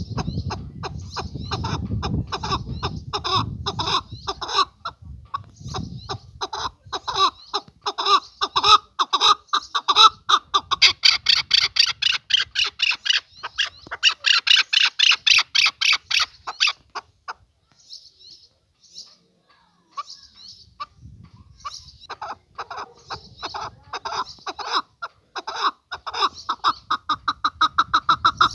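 Male chukar partridge calling: long runs of rapid, rhythmic clucking notes that pause for a few seconds midway and then start again. A low rumble lies under the first few seconds.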